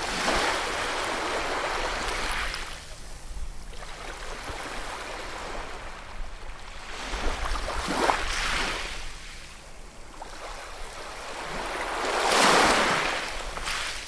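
Ocean waves washing in, three surges of surf that swell and fade, the loudest one near the end.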